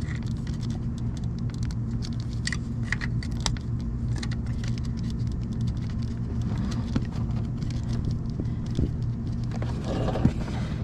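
Light metallic clicks and taps of hand tools working loose a camshaft position sensor bolt in a cramped engine bay, over a steady low hum.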